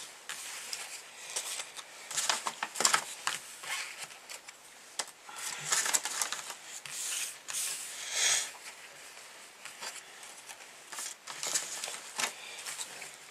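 Paper rustling and crinkling in irregular bursts as envelopes and sticker sheets are handled.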